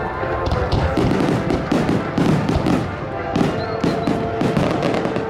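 Aerial firework shells bursting in quick succession: many sharp bangs and crackles overlapping.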